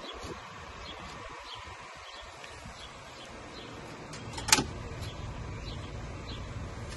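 Outdoor background: a steady low rumble with faint, scattered bird chirps, and one sharp click about four and a half seconds in.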